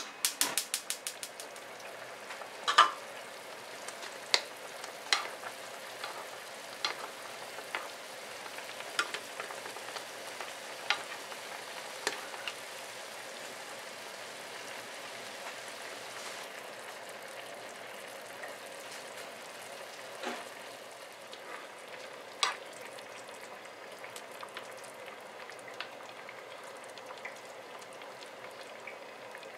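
Broth simmering and sizzling steadily in a frying pan around stuffed fried-tofu pouches. Sharp clicks from a plastic spoon knocking the pan come in a quick run at the start, then every second or two, thinning out later.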